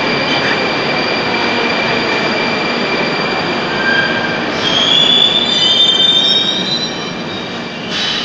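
Rusich metro train pulling into the station and braking to a stop: steady running noise with a held high whine, then high wheel and brake squeal from about five seconds in, the loudest part. A short burst of noise comes near the end as the train halts.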